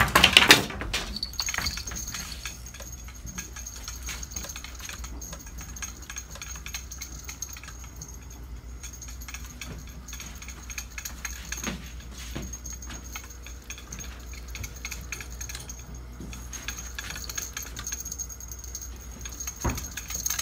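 Fishing tackle being handled, a rod and reel worked by hand: light, irregular clicking and rattling, after a loud clatter at the very start. A faint steady high tone runs underneath.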